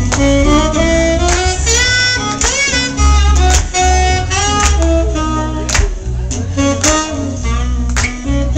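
A live band playing, led by a saxophone solo of held and sliding melodic notes. Underneath are acoustic guitar, bass guitar and regular drum hits.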